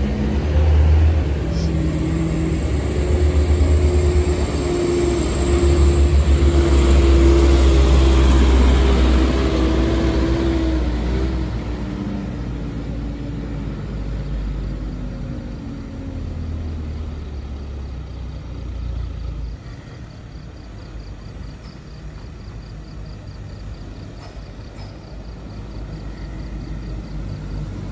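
Road traffic passing close, with a heavy truck's diesel engine the loudest sound. Its drone is strongest in the first third, then drops in pitch and fades about halfway through. Quieter passing traffic follows.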